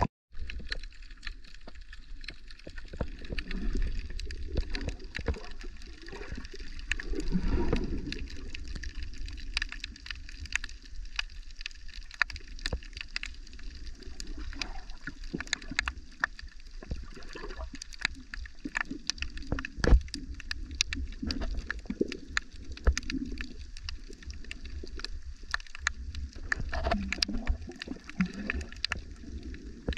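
Underwater sound picked up by a submerged camera: a muffled low rumble and water movement, with many sharp clicks and crackles scattered throughout.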